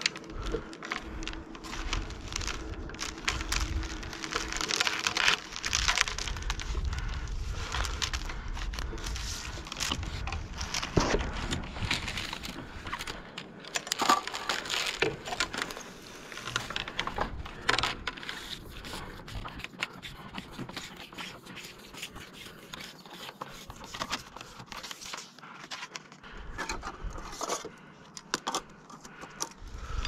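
Irregular rustling, crinkling and scraping of a line worker's clothing and gear as he works close against a wooden utility pole, with scattered sharp clicks and knocks. A low rumble on the microphone runs through the first half and comes back briefly later.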